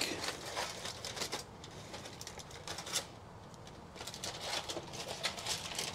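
Aluminium foil crinkling and crackling as it is peeled back from a foil roasting pan, with one sharper crackle about halfway through.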